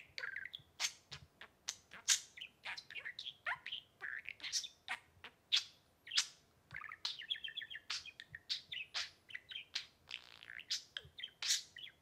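Budgerigar chattering: a quick, unbroken string of sharp chirps and clicks mixed with short warbled notes.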